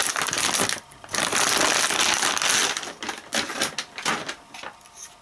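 Metallized anti-static bag crinkling and crackling loudly as a graphics card is slid out of it. The noise breaks off briefly about a second in, comes back loud, then thins into a few separate rustles that die away near the end.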